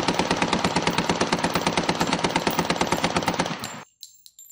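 A machine-gun sound effect firing one long, very rapid continuous burst that cuts off abruptly after nearly four seconds. It is followed by a few bright metallic clinks of spent casings falling.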